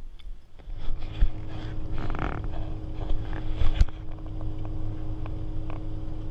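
Bass boat's outboard motor running at speed, a steady hum that starts about half a second in, with wind and water rushing past the hull. Sharp knocks about one second in and near four seconds in, as the hull slaps the water.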